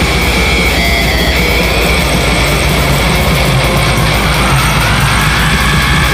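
Death metal music: heavily distorted electric guitars over fast, dense drumming, loud and unbroken.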